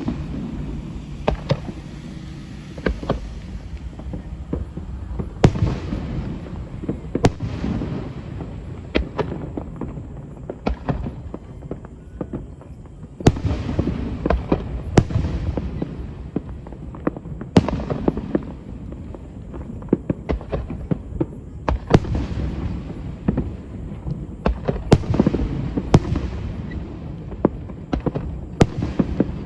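Aerial fireworks exploding: a rapid, irregular series of sharp bangs, each with a short echoing tail, over a continuous low rumble and crackle of further bursts.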